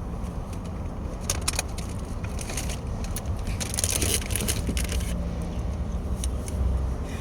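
Steady low vehicle rumble, with short runs of clicking and rattling about a second in and again around four seconds in.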